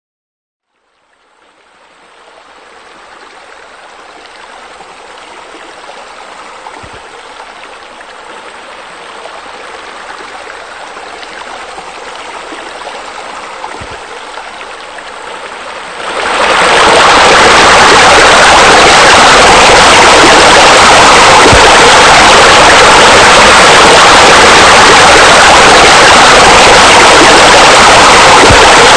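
Steady rush of running water, like a fountain or waterfall. It fades in from silence over the first few seconds, then jumps abruptly to much louder about sixteen seconds in.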